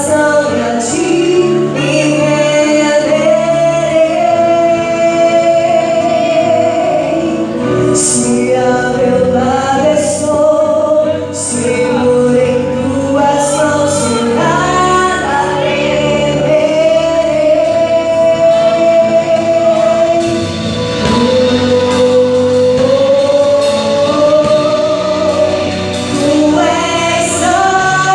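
Gospel worship song played by a live band: a female lead singer, with other voices joining, over keyboard, guitars, bass and drums, with a few cymbal crashes.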